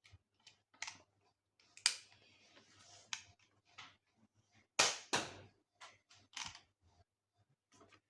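A small projectile gun being handled and fired: scattered clicks, with a sharp crack about two seconds in and a louder double crack about five seconds in.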